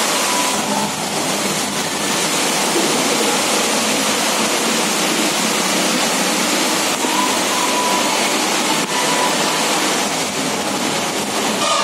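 Steady rushing and splashing of water from the spouts along the walls pouring into a shallow wading channel.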